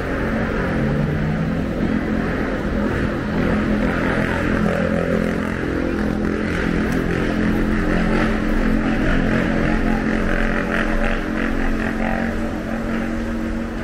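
Night-time city street noise dominated by a motor vehicle engine running with a steady low hum.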